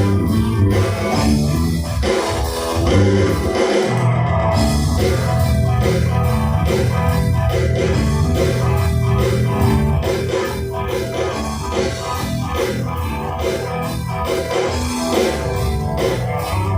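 Live rock band playing with electric guitar, bass and drum kit.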